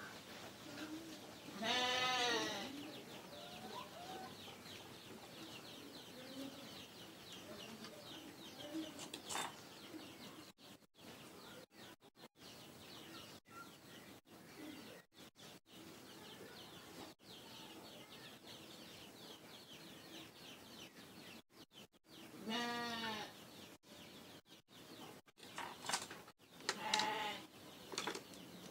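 A goat bleating twice, a wavering bleat about two seconds in and another about twenty seconds later, over faint background noise.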